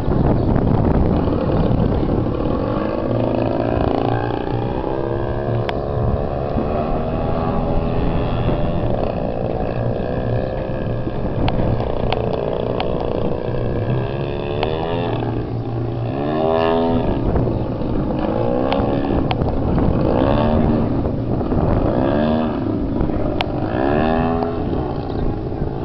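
Large RC Extra 300's four-stroke engine running through aerobatics, its pitch rising and falling with throttle and passes. From about 16 s on the pitch swoops up and down every second or two as the plane tumbles and turns.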